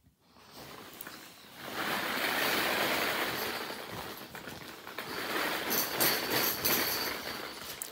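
A pitful of small hollow plastic ball-pit balls rattling and clattering together as the pit is tipped out and they pour onto the rug. It is a dense, continuous rattle that swells about two seconds in and eases off near the end.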